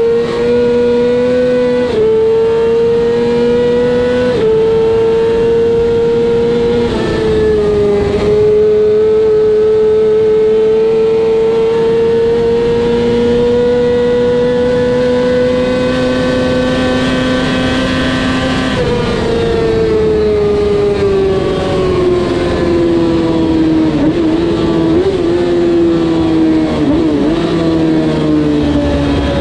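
Kartcross's 600cc engine at high revs, heard from the cockpit: its pitch drops briefly about four times in the first eight seconds as it shifts up, climbs steadily until about two-thirds through, then falls away as the car slows, with a few short wobbles near the end.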